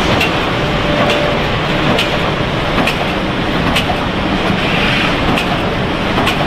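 Snack packaging line running: a steady machine noise with a sharp click repeating about once a second, the rhythm of a vertical bag-packing machine cycling.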